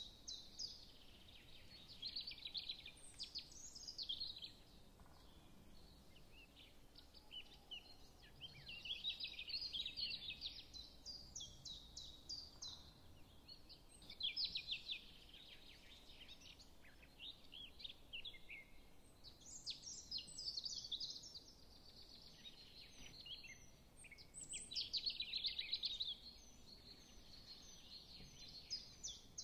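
Hot oil sizzling and crackling as green chilies and sliced onions fry in an aluminium pressure cooker, the spattering swelling in bursts every few seconds.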